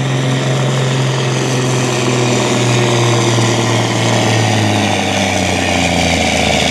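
DAF pulling truck's diesel engine running hard under full load as it drags the sled, its pitch sagging a little over the last couple of seconds.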